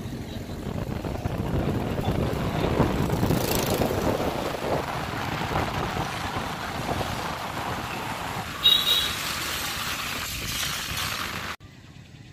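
Street traffic noise: a steady rumble of passing vehicles, with a short high-pitched tone about nine seconds in. The noise cuts off suddenly near the end.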